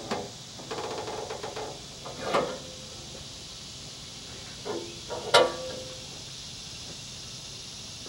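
Metal clanks and knocks from the steel clamp and side supports on a Wood-Mizer LT15 sawmill bed being set against a board: a short rattle about a second in, a knock a little later, then two sharp knocks around five seconds, the last one loudest with a brief ring.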